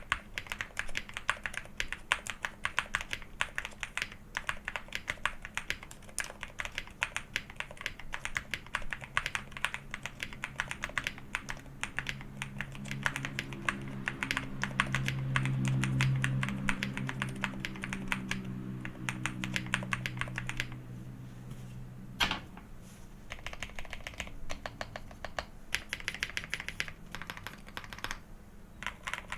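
Fast, continuous typing on a Qwertykeys QK65 mechanical keyboard with JWK Semi Silent switches, a polycarbonate plate and PBT keycaps, a creamy, dampened keystroke sound. The typing thins to sparse strokes after about two-thirds of the way through, with one sharper stroke there. A low hum swells and fades in the middle.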